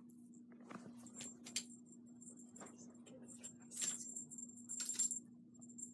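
A small bell on a hanging cat toy jingling in short, irregular bursts as kittens bat at it, loudest about four and five seconds in, with light scuffling and clicks between.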